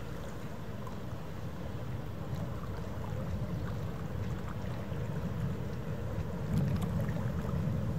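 Low, steady rumble of a cruise ship's engines across the harbour, slowly growing louder.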